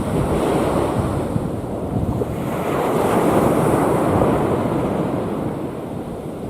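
Sea waves breaking and washing on the shore, with wind buffeting the microphone; the surf swells to a peak a few seconds in and then eases off.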